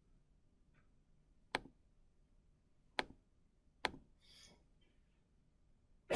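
Three quiet, sharp clicks of a computer pointer button: the second comes about a second and a half after the first, and the third comes just under a second later. A faint brief rustle follows the third click.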